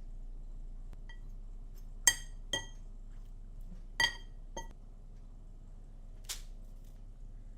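Kitchenware clinking: four ringing clinks in two close pairs about two seconds apart, then a short swish near the end.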